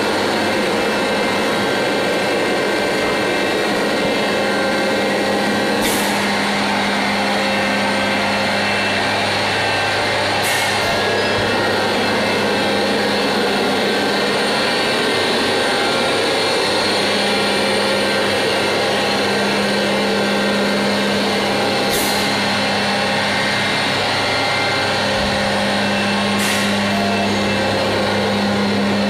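Pneumatic vacuum powder conveyor running while it conveys milk powder to a mixer: a steady machine hum with several constant tones, broken by four short, sharp hisses of air.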